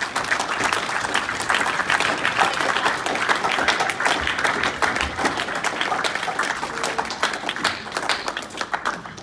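Audience applauding: many people clapping densely, thinning out near the end.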